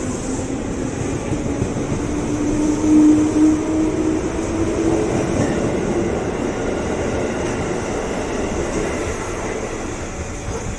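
Electric commuter train (KRL Commuter Line) running past along the platform, a steady rumble of the cars on the rails with a whine that rises in pitch over the first few seconds. The sound eases off near the end as the last car goes by.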